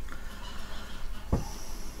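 Hands handling a thin wire close to the microphone: light rustling, then a single dull bump a little past the middle.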